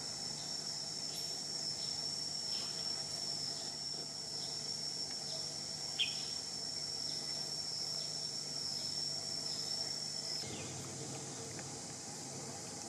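Steady, high-pitched insect drone, with a sharp short chirp about six seconds in; the drone cuts off suddenly about ten seconds in.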